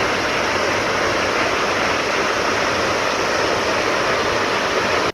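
Salt Creek Falls, a tall waterfall, roaring steadily as it plunges into the gorge below.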